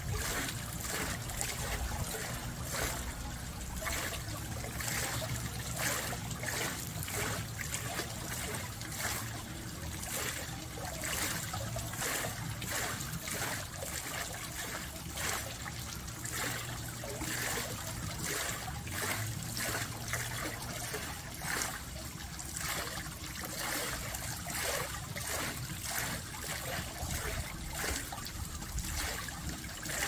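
Water trickling and splashing at a small wooden waterwheel: a thin stream pours onto the wheel and water spills off its paddles into a shallow pool. It runs steadily, with irregular small splashes a few times a second.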